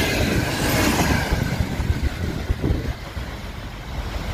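Passenger coaches of an express train rolling past on the rails, wheel and track noise rushing by. The noise fades as the end of the train moves away, with a low rumble remaining.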